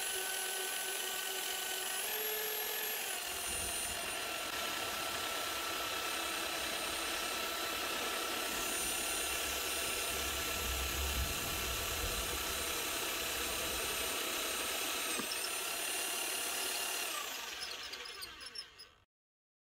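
Parkside PBH 1500 F6 1500 W rotary hammer drilling through a flat steel bar with a 13 mm HSS bit in its keyed chuck adapter: a steady motor whine with high tones that shift slightly in pitch, falling away and fading out as the drill winds down near the end.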